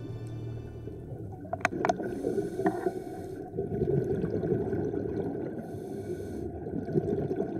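Underwater ambient noise picked up by a camera in its housing: a low, rough, crackly rumble of water, with a few short squeaks about two seconds in.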